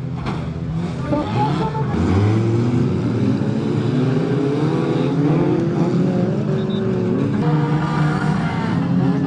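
Stock car engines running and revving together. Several engine notes overlap, rising and falling as the cars accelerate and lift off, with a strong rise about two seconds in.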